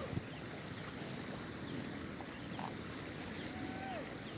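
Steady rushing of a fast-flowing river, with a soft knock just after the start and a single short call that falls in pitch near the end.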